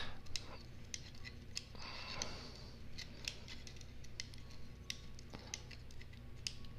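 Faint, scattered small clicks of a hex key turning M3 bolts as they are tightened into 3D-printed plastic brackets, with a brief rustle about two seconds in.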